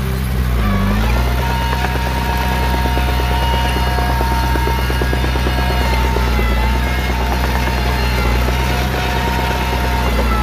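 Heavy diesel engine of earthmoving machinery running steadily under load, its pitch dipping briefly about a second in. Thin high squealing tones and a fast rattle of clanks ride over it.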